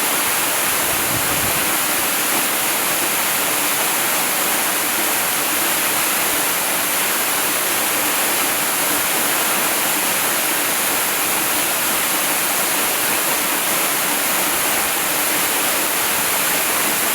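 Waterfall: a steady, unbroken rush of falling water, hissy and even, with no change in level.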